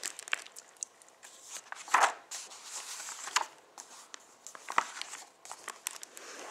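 Pages of a hardcover picture book being turned by hand: soft paper rustling and sliding, with a few louder page flips.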